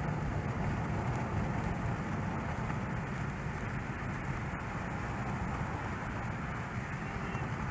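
Steady road and engine noise of a car driving, heard from inside the cabin: a low, even rumble.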